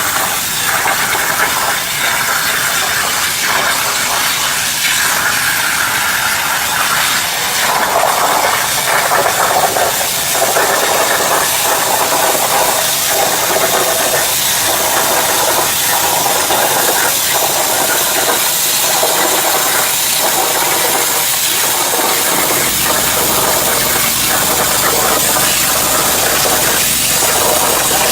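A CNC plasma cutter's torch cutting steel sheet: a loud, steady hiss with a faint pulsing about once a second. A low hum joins about three-quarters of the way through.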